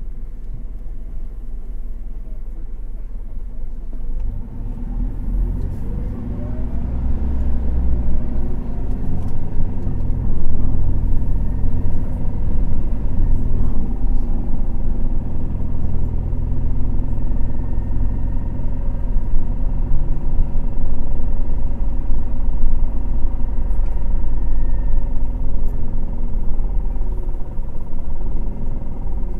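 Bus running, heard from inside the cabin. After a few quieter seconds it pulls away: the engine note climbs as it accelerates and a steady whine comes in. It then runs on with a low rumble.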